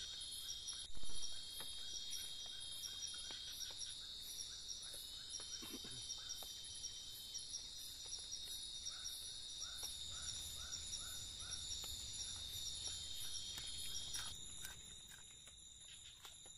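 Night insects in tropical forest buzzing in a steady, high, pulsing chorus, with a lower chirp repeating a few times a second. A sharp knock sounds about a second in, and the high buzz partly drops out near the end.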